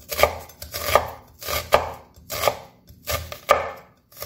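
Chef's knife slicing a red onion on a wooden cutting board in a steady rhythm, about one cut every 0.7 seconds. Each cut is a short crunch through the onion that ends in a sharp knock of the blade on the board.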